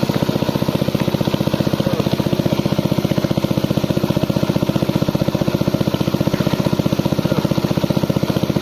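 Small engine-driven water suction pump running steadily, its engine firing in a rapid even pulse.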